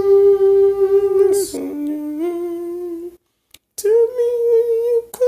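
A voice humming a slow wordless melody in three long held notes, the second lower and the third higher. The sound cuts out to silence for about half a second a little after three seconds in.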